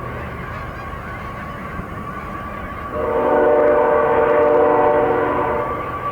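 A train horn sounds one long steady blast of about three seconds, starting about halfway through, over the constant honking of a large flock of Canada geese.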